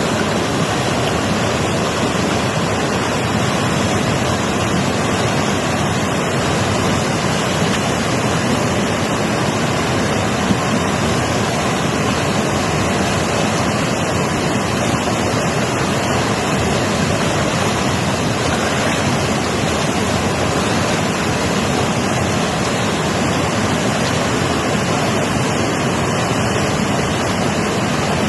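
Mountain river rushing: a loud, steady roar of fast-flowing water that stays constant.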